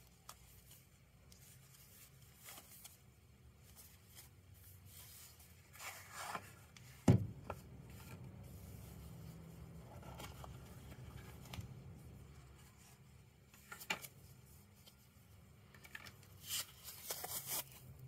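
Faint rustling, scraping and sliding of a cardboard lighter gift box as its sleeve is slid off and the box is opened, with one sharp knock about seven seconds in and a burst of rustling near the end.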